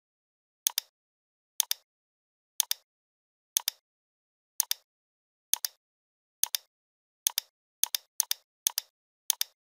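Computer mouse button clicking about a dozen times. Each click is a quick press-and-release pair, about once a second at first and closer together near the end, with nothing heard between.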